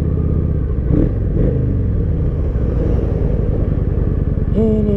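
Kawasaki Vulcan 900 V-twin cruiser engine idling, then pulling away at low speed about a second in, its exhaust pulsing steadily.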